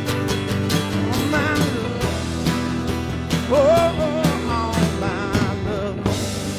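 Americana rock band playing an instrumental passage: drums keep a steady beat under bass and guitar chords, while a lead line with a wavering vibrato rises and falls. About six seconds in the drums stop and a chord is left ringing.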